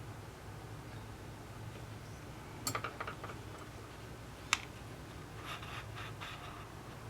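Small clicks and light scraping of fine repair tools working on an Apple Watch: a quick run of ticks, one sharp click, then a few soft scratchy taps, over a low steady hum.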